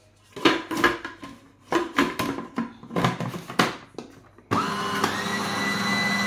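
Short plastic clicks and knocks as the Siemens 800 W food processor is handled and its dial turned, then about four and a half seconds in the motor starts abruptly with a quickly rising whine that settles into a steady run, mixing butter and sugar in the bowl.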